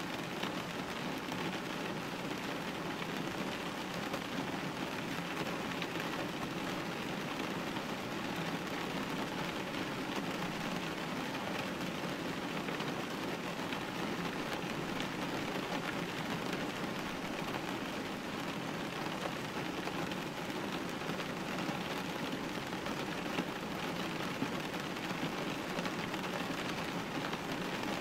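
Steady rain hitting a glass window pane: an even hiss dotted with many small drop ticks.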